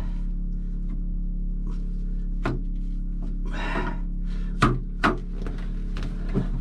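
Sharp knocks and a short scrape as parts of a narrowboat's PMR 150D marine gearbox are handled and worked back into place. There are four knocks, the loudest two close together past the middle, over a steady low hum.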